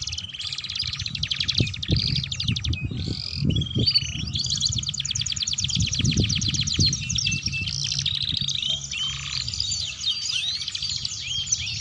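Domestic canaries singing continuously in a long run of fast trills and rolls mixed with short rising whistles, over an irregular low rumble.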